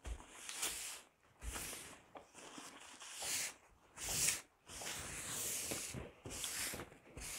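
Soft rustling and wiping of a paper napkin rubbed over a plastic oilcloth tablecloth, in several short spells with silent gaps between.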